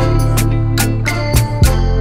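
Background music with a steady drum beat over bass and chords.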